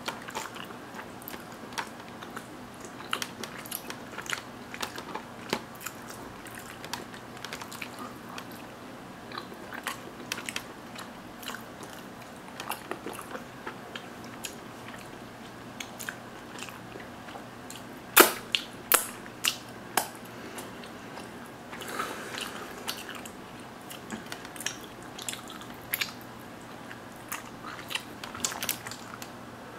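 A person chewing mozzarella curds and tomato up close to the microphone, with many small wet mouth clicks and smacks throughout. A run of sharper, louder clicks comes a little past the middle.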